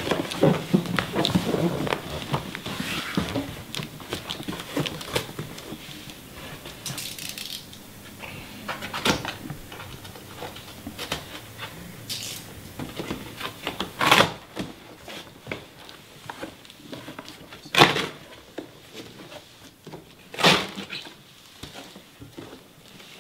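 Cardboard shipping box being handled and opened: flaps rustling and scraping, with three sharp knocks in the second half, the middle one the loudest.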